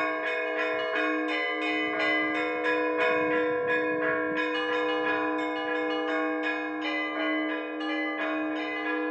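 Orthodox church bells rung together in a continuous zvon: smaller bells struck in a quick, even rhythm of several strokes a second over a lower bell that keeps ringing beneath them.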